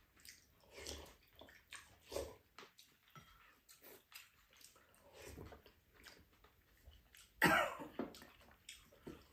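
Quiet eating sounds at the table: a few soft slurps of soup from spoons, with a brief louder throaty sound about seven seconds in.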